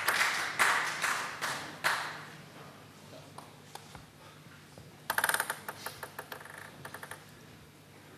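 Celluloid-type table tennis ball clicking off bats and table in a fast rally, a sharp click about every half second, stopping about two seconds in. A little after five seconds, a quick cluster of light, ringing clicks that thins out over the next two seconds.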